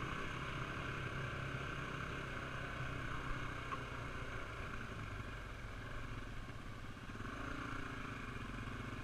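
Honda XR400R dirt bike's air-cooled single-cylinder four-stroke engine running steadily under throttle through sand, heard from a helmet camera. The engine eases off about seven seconds in, then picks back up.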